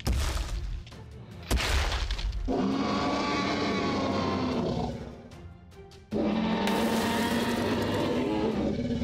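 Dinosaur sound effects: two deep stomping thuds about a second and a half apart, then two long roars, the second starting about six seconds in, over background music.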